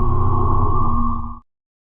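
Synthesized sci-fi alarm sound effect: a deep rumbling drone with steady ringing tones that cuts off suddenly about one and a half seconds in, followed by silence.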